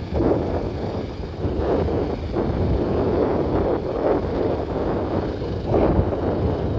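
Helicopter rotors and engine running as it moves off low over the ground, mixed with wind buffeting the microphone in uneven gusts.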